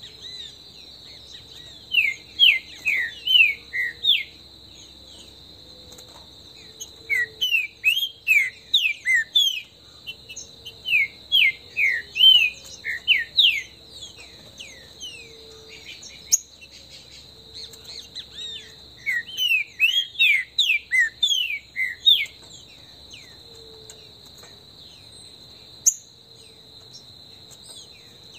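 Green-winged saltator (trinca-ferro) singing in four bouts of quick sliding notes, over a steady high insect drone.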